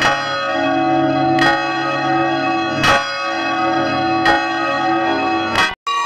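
Church bell tolling: five strokes about a second and a half apart, each ringing on into the next. The recording is digitally processed with editing effects, and the sound cuts out for an instant near the end.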